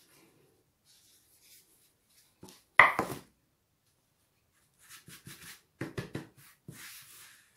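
Hands working shortcrust pastry around the rim of a metal pie tin, tearing off the excess dough. One sharp knock about three seconds in, then a few light taps and clicks near the end.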